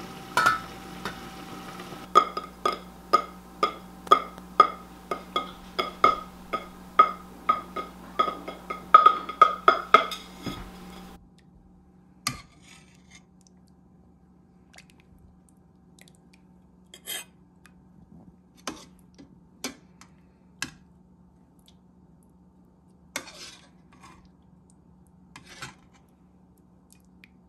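A stainless-steel pot lid is set down with a clink over a steady low hum, followed by a run of evenly spaced ringing metallic clinks that speed up over about nine seconds. After the hum cuts off, a metal ladle clinks and scrapes now and then against a stainless pot.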